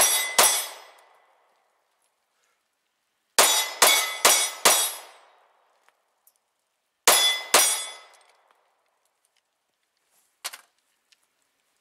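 Smith & Wesson M&P40 Compact .40 S&W pistol fired in quick strings, each shot with a short ringing tail: the last two shots of a string at the start, four quick shots about three and a half seconds in, and two more about seven seconds in. Near the end comes a light clack as the pistol is set down on a table.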